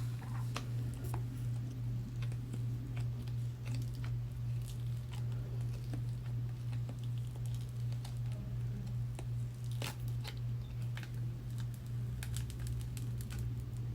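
Cured resin pieces being worked out of flexible silicone molds: scattered clicks, crinkles and soft peeling sounds, two sharper clicks about ten seconds in, over a steady low hum.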